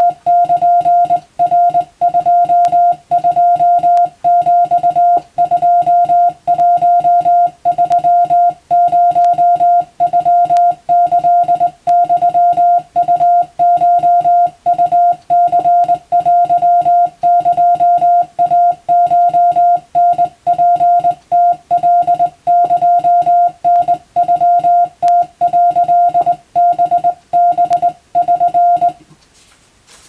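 Hand-keyed Morse code on a straight telegraph key: a single steady beep tone switched on and off in dots and dashes, sending Japanese wabun Morse text. The keying stops near the end.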